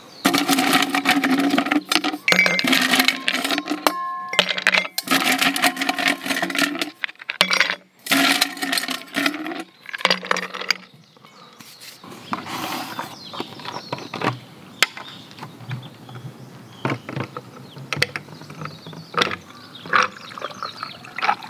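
Ice cubes clinking and clattering as they are packed by hand into a glass beer mug. The clatter is loud and dense for roughly the first ten seconds, then drops to softer, scattered clinks.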